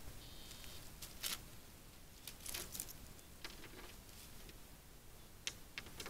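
Faint, scattered crackles and rustles of dry leaf litter and twigs as a short-beaked echidna shuffles over the ground, over a steady low hiss.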